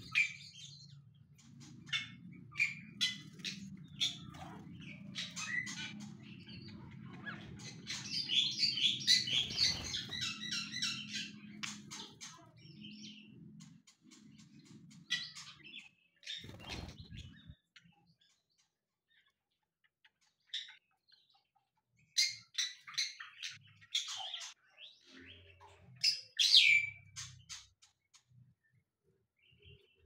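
Several aviary birds chirping and calling in short, sharp notes, thickest about a third of the way in and again near the end, with a low steady rumble under the first half.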